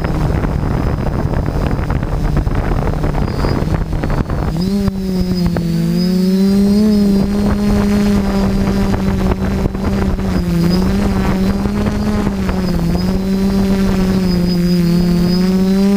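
Motor and propeller of an FPV model aircraft carrying the camera, a steady hum under wind rush. About four and a half seconds in the wind rush drops and the motor's pitch steps up slightly, then holds with small wavers.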